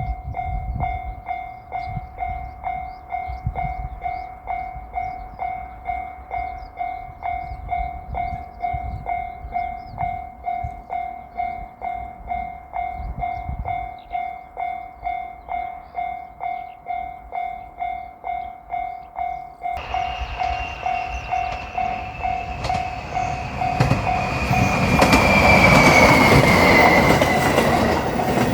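Level-crossing warning bell dinging in a steady, even rhythm. About two-thirds of the way through, a JR Shikoku 7200 series electric train comes in. Its noise swells to the loudest point near the end, with a high whine gliding down in pitch over the bell.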